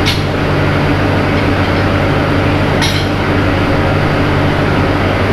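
ZDM3 narrow-gauge diesel locomotive idling steadily at close range, with two short metallic clinks from the coupling between engine and coach, one at the start and one about three seconds in, as it is being coupled up.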